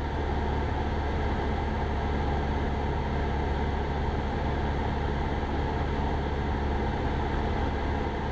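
Cessna 172 Skyhawk's piston engine and propeller droning steadily in flight, heard inside the cabin.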